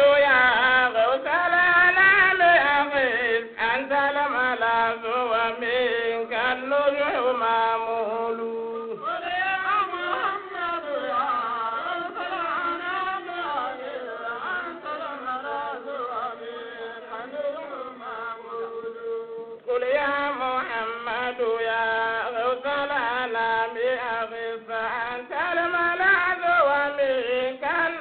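Islamic devotional chant: a voice singing a slow, winding melody in long held phrases over a steady drone note, with short breaks between phrases about 9 and 20 seconds in.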